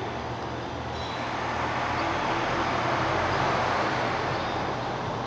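Road traffic: a steady rush of vehicle noise that swells to a peak a little past the middle and then fades, over a low steady hum.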